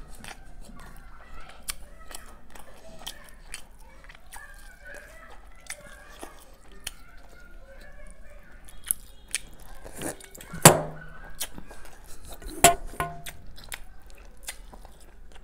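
Close-miked chewing and wet mouth sounds of someone eating soft, syrup-soaked rajbhog sweets: lip smacks and squelches throughout, with two louder wet smacks in the second half.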